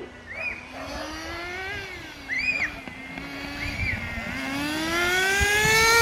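Toy remote-control car's electric motor whining, its pitch wavering as it drives, then rising steadily over the last two seconds as it speeds up. Three short high squeaks come in during the first four seconds.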